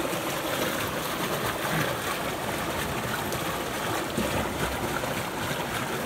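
Small stream running over rocks: a steady rush of moving water.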